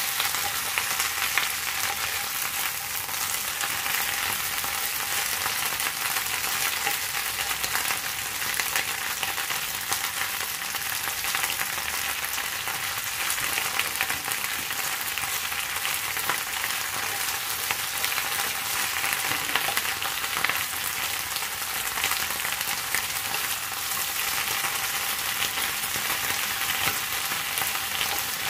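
Pechay (bok choy) sizzling steadily in hot oil in a wok as a wooden spatula stirs and turns the leaves, with light scrapes against the pan.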